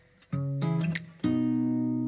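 Background music with strummed acoustic guitar chords. After a brief quiet start, one chord comes in about a third of a second in and another just after a second.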